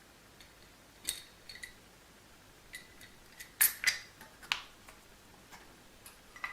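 Light clicks and metallic clinks from small parts and objects being handled and set down on a hard surface. The strokes come irregularly, each with a brief ring, and the loudest come as a quick cluster a little past the middle.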